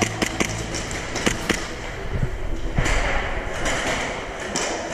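Airsoft gunfire: a quick run of sharp cracks in the first second and a half, then a few scattered ones, over a steady noisy background.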